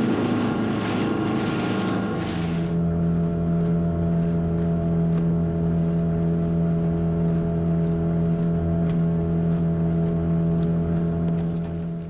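Engine of a small open motorboat running at a steady speed, its note holding level. For the first couple of seconds wind and water rush over it; after that the engine note stands alone until it stops near the end.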